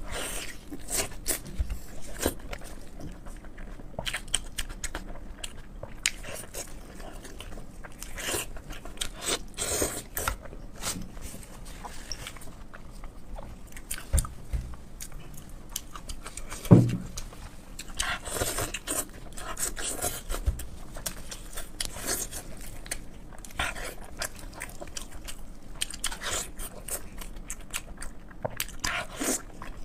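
Close-miked eating of pork in sauce: repeated wet chewing, biting and lip-smacking clicks. A single louder knock sounds about seventeen seconds in.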